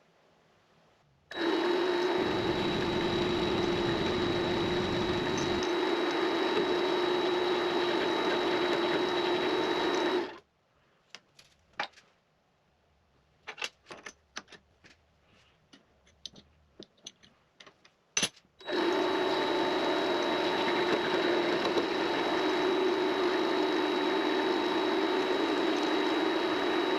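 Vevor MX400 mini lathe running with a steady whine, then switching off about ten seconds in. Scattered light clicks and knocks follow, then a sharp click, and the lathe starts running again about eighteen seconds in.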